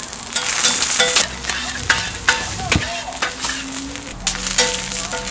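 Burger patty and fried eggs sizzling in oil on a flat-top steel griddle, with a metal spatula clicking and scraping against the plate as an egg is flipped.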